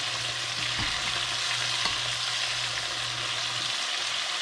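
Chicken pieces deep-frying in hot oil in a stainless steel pot, a steady sizzling hiss. Metal tongs click against the pot twice as the pieces are turned.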